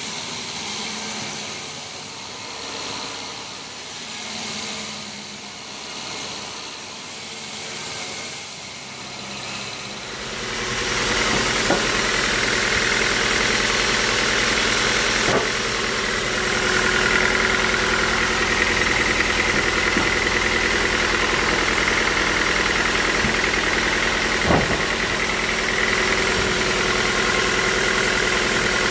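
Sawmill machinery running with a steady mechanical drone. It swells and fades gently at first, then grows louder and steadier about ten seconds in, with a few short sharp knocks.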